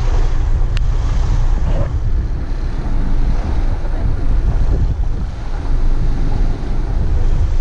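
Wind rumbling steadily on the microphone of a camera filming from a moving car, over the low noise of the car driving. A single sharp click about a second in.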